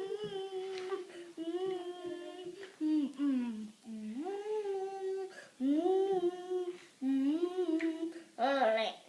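A single high voice singing a wordless melody unaccompanied, in about seven held notes of roughly a second each, several sliding up into the note, with short breaks between.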